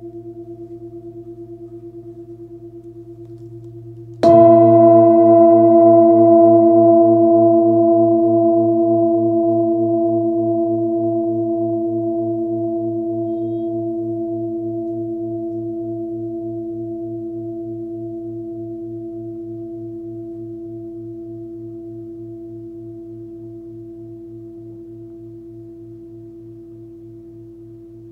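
24 cm Nepalese singing bowl with a 111 Hz (A) fundamental, struck once about four seconds in and then ringing with several overtones and a slow wavering pulse, fading gradually. Before the strike, the ring of the previous stroke is still dying away.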